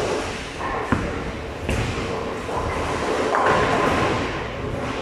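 Bowling ball released onto the lane with a thud a second or two in, set in the steady din of a bowling alley, with balls rolling and pins clattering on the lanes.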